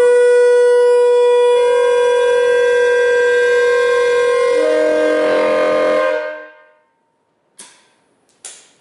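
Mutt train air horn built from Nathan K-series bells 1, 4 and 4A (a K144a), sounded in one loud blast of about six seconds. It starts on a single note, other bells come in about a second and a half in and again near five seconds, and they clash into a discordant chord before it cuts off. The result is ugly, ear-ringing and painful to stand near.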